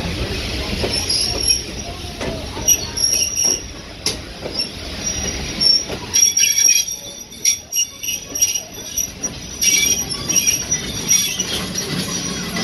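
Steel wheels of slowly passing passenger coaches squealing on the rails, a high on-and-off screech, with a low rumble and scattered sharp clicks and clanks from the running gear.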